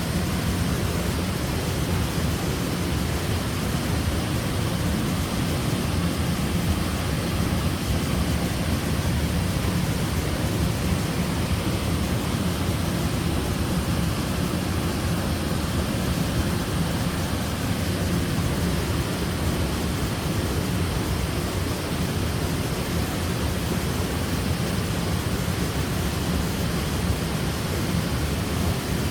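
Waterfall: water falling and rushing in a steady, unchanging roar, heaviest in the low end.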